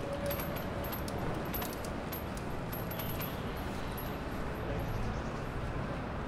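Outdoor city street ambience: a steady low rumble with many light, scattered clicks.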